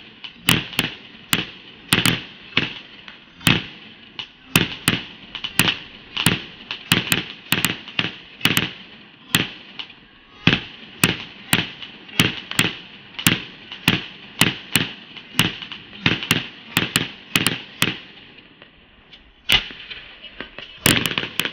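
Multi-shot fireworks cake firing shot after shot, a rapid irregular run of sharp bangs about two a second, with a short lull near the end before the shots pick up again.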